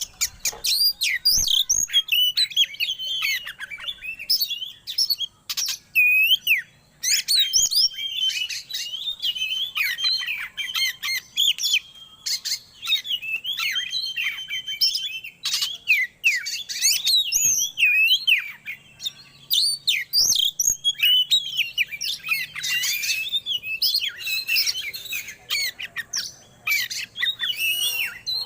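Oriental magpie-robin (kacer) singing a fast, varied song of whistled sweeps, chirps and harsh squawky notes, broken by a few short pauses.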